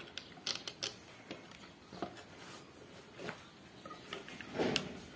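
Light, scattered clicks and rustles of hands handling electrical wire and small parts while wiring up a switch, with a slightly louder click a little before the end.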